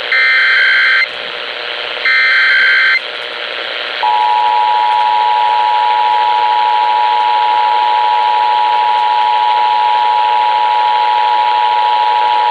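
Emergency Alert System alert received over a radio: the last two of three harsh digital screech bursts of the SAME header data, then about a second later the EAS two-tone attention signal (853 and 960 Hz sounded together), held steady to the end, over radio hiss.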